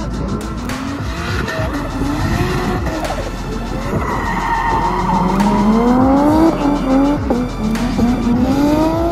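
Car drifting on a track: its engine revs rise and fall several times as the tyres squeal and skid.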